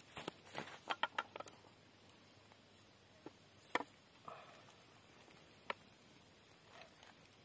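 Light clicks and clinks of cooked mussel shells, a machete blade and a bamboo stick knocking against a metal wok as it is tipped to drain off the cooking water: a quick cluster in the first second and a half, then two single sharp clicks a couple of seconds apart.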